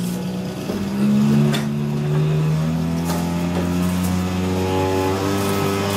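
Small piston engine and propeller of a fixed-wing UAV running on the ground during a vibration test, its pitch stepping up several times as the throttle is raised in stages.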